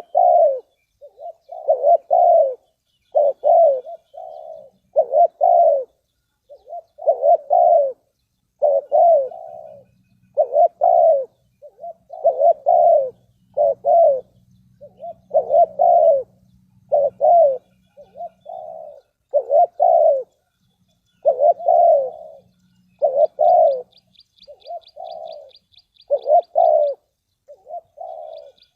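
Spotted dove (tekukur) cooing over and over, its low coo notes coming about once a second. A faint, fast, high trill of ticks joins in the last few seconds.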